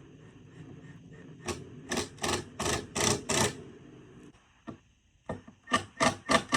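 Sharp knocks on a wooden 2x4 cross piece being worked into place in door framing, in two runs of about three knocks a second. A steady motor hum runs under the first four seconds and then cuts off.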